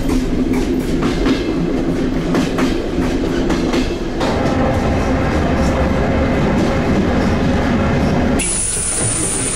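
Soviet-era electric commuter train (elektrichka) running along the track, heard from inside the carriage: a steady rumble and hum, with a higher steady hum joining about four seconds in. About a second before the end the sound changes abruptly to a duller rumble.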